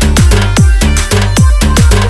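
Electronic dance remix played loud, with a deep kick drum that drops in pitch on each hit in a fast, steady beat.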